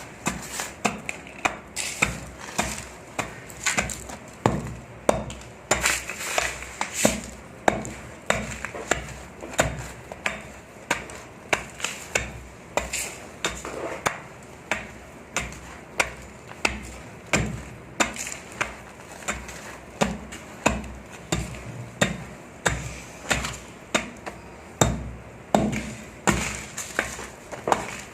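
Dry, crunchy sand crumbles breaking apart in a steady run of sharp crunches, about one and a half a second, each with a short crackling tail.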